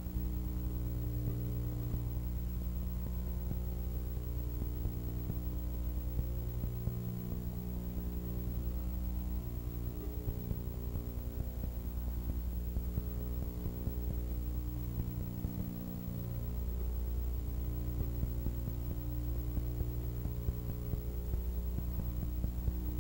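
Steady electrical mains hum: a low, even buzz with many overtones that holds level throughout, with no race-car engine sound.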